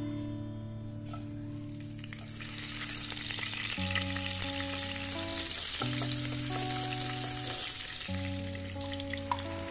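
Sliced green chillies dropped into hot oil in a nonstick kadai, sizzling and spattering steadily from about two seconds in.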